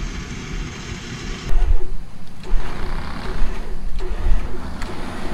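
Off-road vehicle engine running, with an uneven low rumble from wind on the microphone. About a second and a half in, the sound gets suddenly louder.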